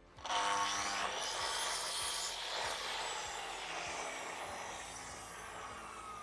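Sliding compound mitre saw starting up sharply and cutting through a small piece of wooden stair infill. The blade then winds down with a falling whine after the trigger is released.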